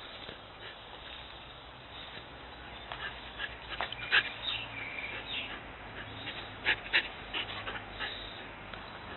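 Husky dogs at rough play, giving short high-pitched cries: a scattered run of them, the loudest about four seconds in and two more close together around seven seconds.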